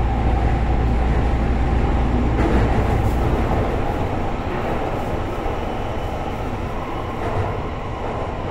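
Running noise inside a Kobe City Subway Seishin-Yamate Line car moving between stations: a steady rumble of wheels and running gear. The deep low rumble drops away about three and a half seconds in, and the overall level eases slightly.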